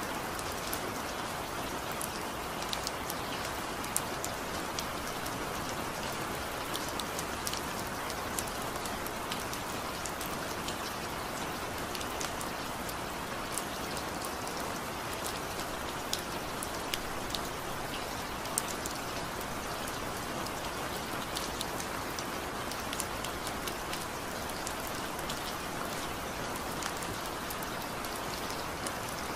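Steady rain falling, with many individual drops ticking sharply on a surface.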